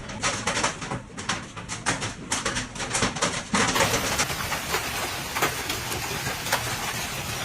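Hailstones pounding down in a rapid, irregular clatter of sharp hits. About three and a half seconds in, it changes to a steadier downpour with fewer, scattered hits.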